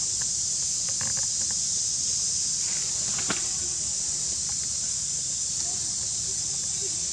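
Steady high-pitched hiss of an insect chorus. A few faint clicks come about a second in, and a single sharp click about three seconds in.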